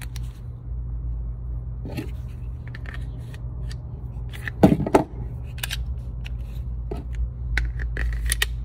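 Metallic clicks and clacks of a Glock 43X pistol being worked by hand, its slide and magazine manipulated, with two louder sharp clacks a little past halfway. A steady low hum runs underneath.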